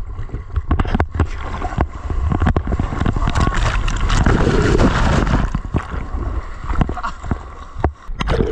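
Seawater splashing and rushing close to the microphone while a wave is caught on a board, over a low rumble of wind on the microphone; the rush swells to its loudest about halfway through, with many short sharp splashes throughout.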